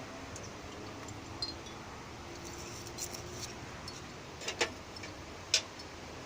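Seashell wind chime clinking in the wind: a few scattered light clicks of shell on shell, the loudest a little past four and a half and five and a half seconds in, over a steady hiss of wind.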